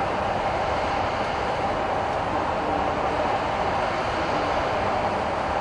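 Tobu 100 series 'Spacia' electric train approaching slowly on a curve, with a steady, even rolling noise of its wheels on the rails.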